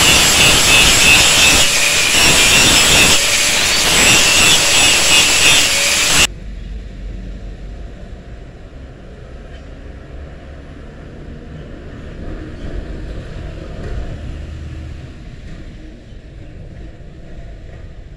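Handheld angle grinder with an abrasive disc grinding the steel of an old saw blade into a knife blank, running loud with a high whine over the grinding. It cuts off suddenly about six seconds in, leaving only a quiet low rumble.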